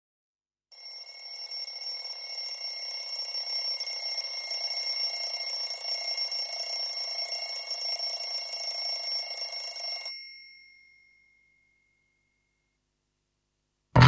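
Alarm clock bell ringing without a break, growing louder over its first few seconds, then stopping about ten seconds in and dying away briefly.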